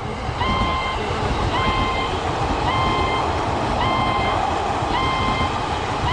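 Railroad crossing warning bell sounding, one steady pitched tone repeating about once a second, over the continuous rumble of a train running past.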